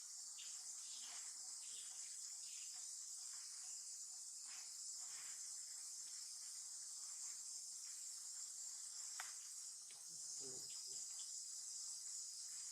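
Insects in the forest trilling steadily at a high pitch, with a few faint clicks and rustles beneath.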